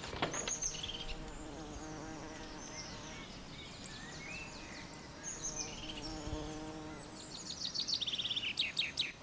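Woodland ambience: an insect buzzing steadily for several seconds, with birds chirping and a quick run of high bird trills near the end.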